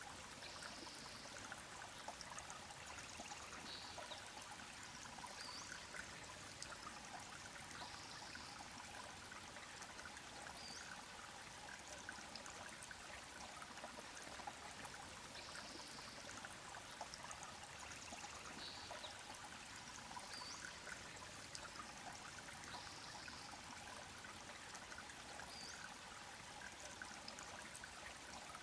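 Small creek trickling over stones: a faint, steady rush of running water.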